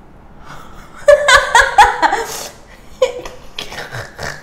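A girl bursts out laughing about a second in, then goes on in a run of short, breathy laughs.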